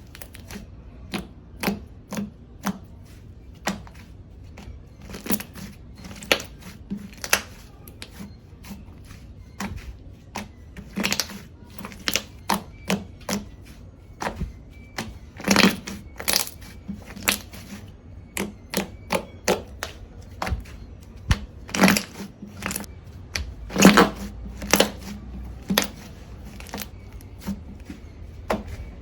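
Slime being pressed and worked by hand, giving an irregular run of sharp clicks and pops, one or two a second, some of them louder than the rest.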